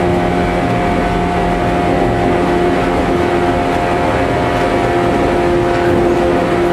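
Interior sound of a JR 115-series electric multiple unit running at steady speed. The MT54 traction motors give a steady multi-tone hum over the rumble of the wheels on the rails.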